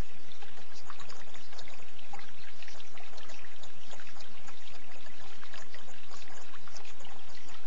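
Running water trickling steadily, with many small splashes.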